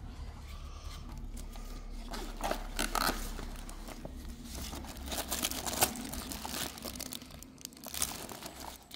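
Petrol-engined wood chipper running with a steady low hum while branches are fed in, snapping and crunching irregularly as the blades chip them. The engine hum drops away at the very end.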